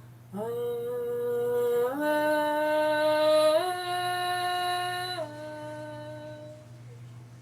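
A woman singing a low triad vocal exercise: three sustained notes stepping upward, then back down a step, swelling louder toward the top note and fading away at the end to show dynamics. A steady low hum sits underneath.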